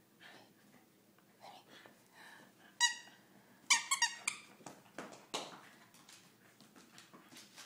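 Squeaker in a dog's toy raccoon squeaking as the dog bites it: one high squeak about three seconds in, then a quick run of three or four about a second later. A couple of soft knocks follow.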